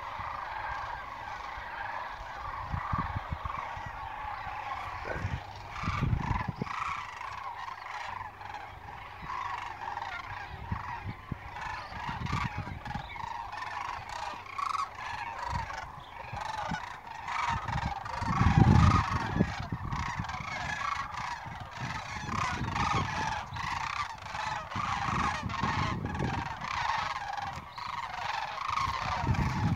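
A large flock of geese flying overhead, honking continuously with many overlapping calls. A few brief low rumbles break in, the loudest about two-thirds of the way through.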